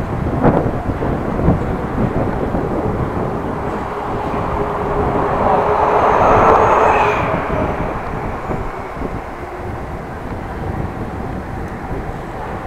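Wind and rolling noise on a bike-mounted camera while cycling through city traffic, with a couple of knocks near the start. A passing motor vehicle swells up and fades away around the middle.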